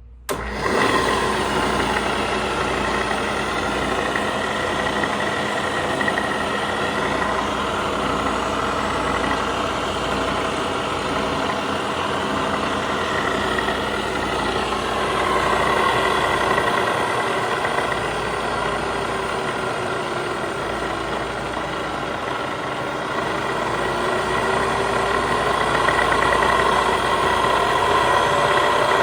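Bridgeport milling machine's motor and spindle switched on about half a second in, then running steadily with a whine made of several steady tones. In the second half one tone slides down and back up again.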